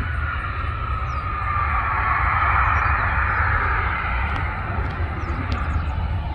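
Jet airliner passing, its engine noise swelling to a peak about halfway through and easing off, over a steady low rumble.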